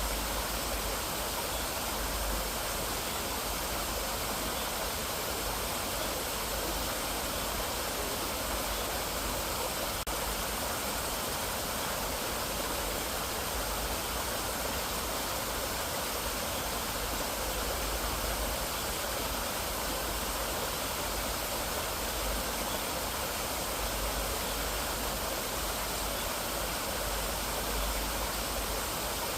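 Mountain valley stream, water rushing steadily over rocks.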